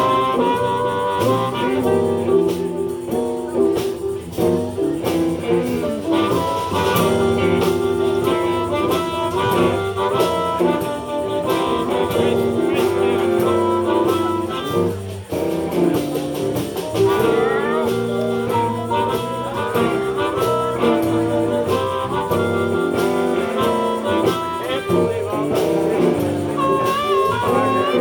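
Live blues band playing an instrumental break with no vocals, a lead instrument soloing with bent, sliding notes over the rhythm section.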